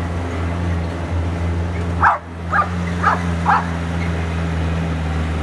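A dog barks four times in quick succession over the steady low drone of a chopped Suzuki 4x4's engine running along.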